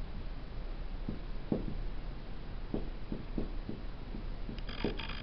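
Felt-tip marker writing on a whiteboard: faint, short strokes and taps, a few each second, over a low steady hum.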